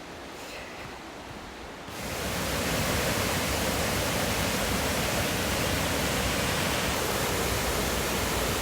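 Waterfall: a steady rush of falling water, growing louder about two seconds in and then holding even.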